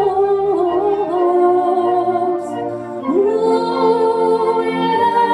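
Music: a singer holds long sustained notes of a schlager song over instrumental backing, with a new held note starting about three seconds in.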